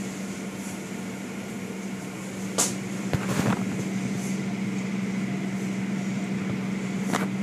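Automatic car wash heard from inside the car: water spraying and streaming over the windshield, with a steady low machinery hum. There are sharp knocks about two and a half seconds in, a cluster just after, and another near the end.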